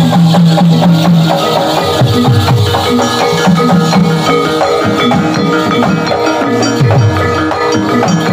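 Javanese gamelan music accompanying a jathilan buto gedruk dance: a busy, steady beat of struck metallophones and percussion, with low notes that bend downward a few times.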